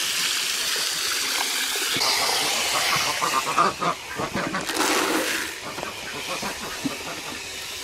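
Water from a garden hose running into a duck's water bucket, topping it up: a steady hissing splash that drops away about five and a half seconds in.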